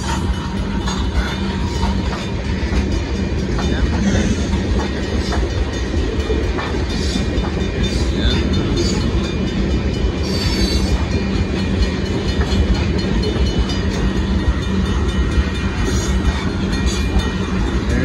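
Loaded sand freight cars rolling past steadily: a continuous rumble of wheels on the rails with clickety-clack over the rail joints.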